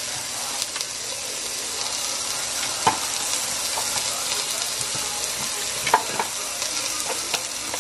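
Steady sizzle of chicken frying in a pan, with a sharp click about three seconds in and another about six seconds in as an immersion blender is handled on its stand.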